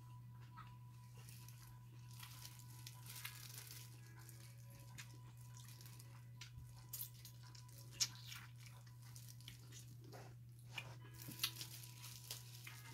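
Close-up eating sounds: chewing, and disposable plastic gloves crinkling as hands pick apart rice and meat, with scattered small clicks and crackles over a low steady hum.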